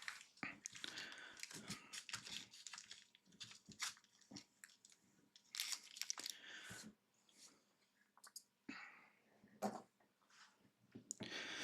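Faint crinkling and rustling of foil trading-card pack wrappers being handled, with scattered small clicks.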